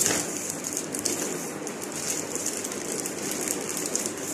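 Plastic courier bag crinkling and rustling as it is handled and pulled open by hand, with a sudden loud crackle at the start and steady fine crackling after.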